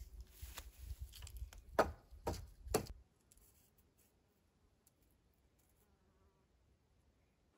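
Rustling handling noise with three sharp clicks or taps close together, then near quiet.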